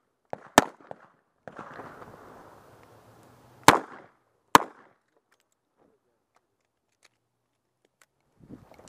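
Pistol shots fired from the camera position at steel and paper targets: one loud shot about half a second in with a couple of fainter pops around it, then two loud shots close together about three seconds later.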